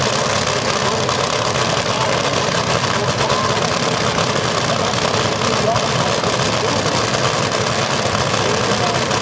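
Steady engine noise with a crowd's chatter mixed in.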